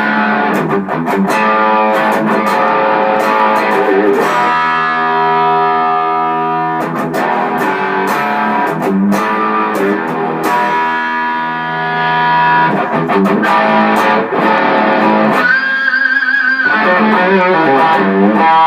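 Electric guitar on the bridge pickup, driven through a Tube Screamer overdrive with the drive all the way up into a single-ended 6V6 tube amp. It plays distorted lead lines and held chords, with a high note held and wavered with vibrato about sixteen seconds in.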